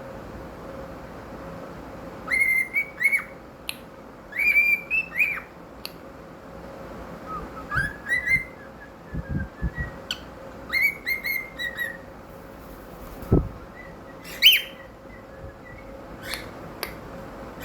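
Cockatiel whistling its song in short phrases of clear notes that glide up and down, with pauses between phrases. A single low thump comes about thirteen seconds in.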